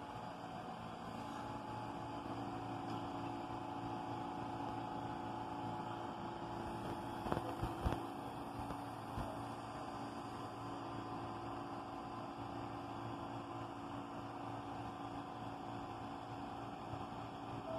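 R68 subway train giving off a steady electrical hum with several fixed tones, with two sharp clicks about seven to eight seconds in.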